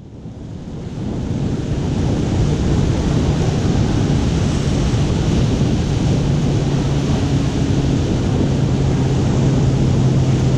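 Surf breaking on a rocky shore, with wind buffeting the microphone; it fades in over the first second or two, and a low steady hum sits underneath from a few seconds in.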